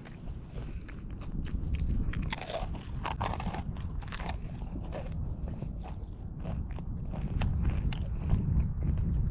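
Wind buffeting the microphone as a steady low rumble, with many scattered crackles and clicks, thickest a couple of seconds in.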